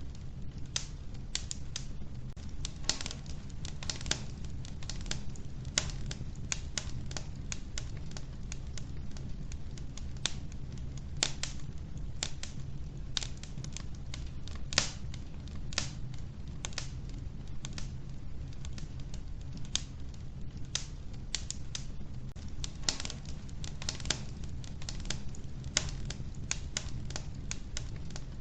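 Wood fire crackling in a wood-burning stove: irregular sharp pops and snaps over a steady low rumble of the flames.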